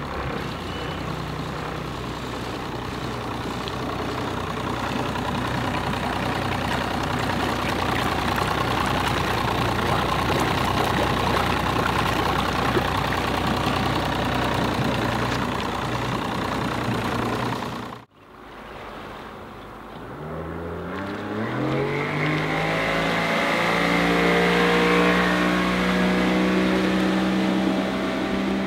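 Evinrude E-Tech 75 hp two-stroke direct-injection outboard running under way, heard up close over the rush of water. About 18 seconds in, after a cut, it is heard from farther off as its pitch rises over about two seconds and then holds steady while the boat accelerates to speed.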